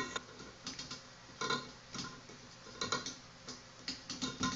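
Irregular light clicks and taps of sink drain parts and a rubber washer being handled and pushed against a ceramic bowl sink.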